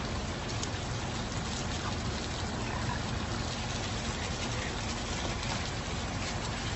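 Steady hiss with a low rumble, heard from inside a car.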